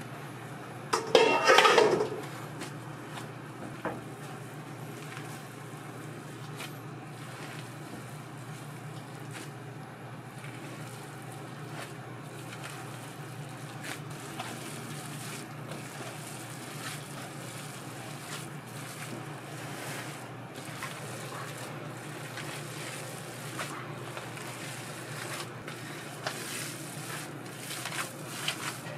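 Commercial kitchen background: a steady low hum, with a brief louder noise about a second in and light knocks and clinks of cookware now and then.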